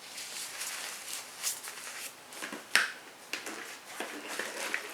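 Rustling and handling of gear being pulled out of a bag, with a sharp click a little under three seconds in.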